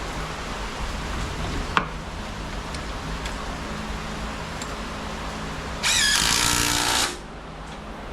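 Power drill running for about a second near the end, driving in a screw, over a steady hiss of rain. A single sharp click comes just under two seconds in.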